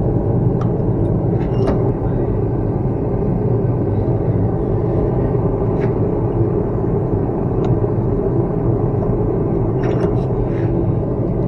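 A forge running with a steady, even rumble, with a few faint clicks on top, several of them together about ten seconds in.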